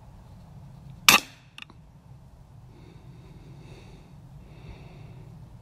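A single shot from a BSA R12 CLX Pro .22 side-lever PCP air rifle, a sharp crack about a second in, followed by a much fainter click about half a second later.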